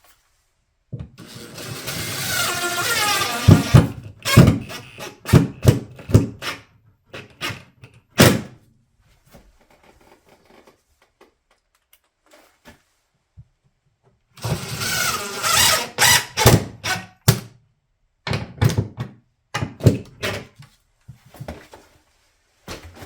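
Cordless drill/driver running twice with a whine that shifts in pitch, driving screws to fasten a drywall plug to wood backing. Each run is followed by several sharp knocks.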